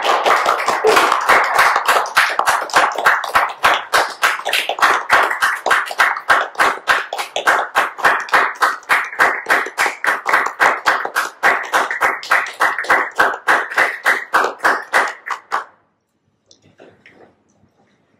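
Audience applauding, at first a dense patter of many hands, then settling into a steady rhythm of roughly four claps a second that stops abruptly about sixteen seconds in, leaving only a few faint soft sounds.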